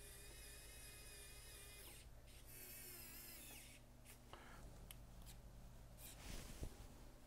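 Mini electric screwdriver driving the extruder's mounting screws, a faint high motor whine in two short runs; the second run's pitch wavers and drops near its end. A few light clicks follow.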